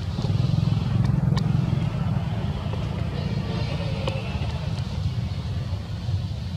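A steady low rumble, with a few faint high chirps around the middle.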